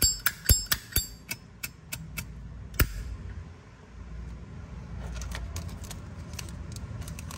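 Sharp metallic clicks and clinks of a brass Zippo lighter being handled. A quick run of clicks with a high ring, about four a second, thins out within the first three seconds. Fainter clicks follow later.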